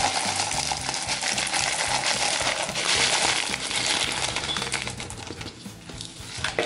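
Expanded clay pebbles (hydroton/LECA) poured from a plastic tub into a clear plastic pot, a continuous rattling clatter of small hard pieces that thins out and fades over the last couple of seconds as the pour slows.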